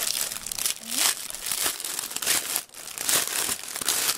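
Plastic packaging crinkling and rustling in irregular bursts as a folded silicone pet food mat is unwrapped from its clear plastic bag.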